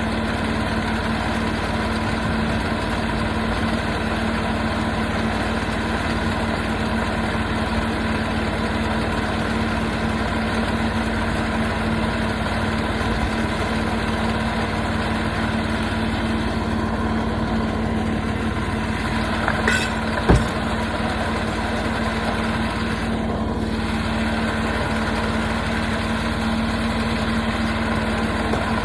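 Portable sawmill's engine running steadily at an even speed, with a brief sharp knock about twenty seconds in.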